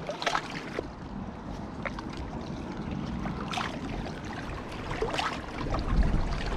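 Wind buffeting the microphone and water lapping at a rocky riverbank, the low rumble swelling about six seconds in, with a few short ticks as a spinning reel is wound in.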